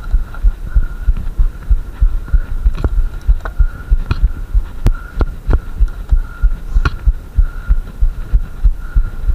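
Mountain bike jolting over a bumpy grass track, heard through a handlebar-mounted camera: rapid, irregular low thumps, with a few sharp clicks and rattles from the bike.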